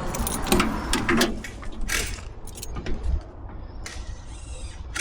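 Scattered clicks and clinks of small metal parts being handled, over a steady low rumble.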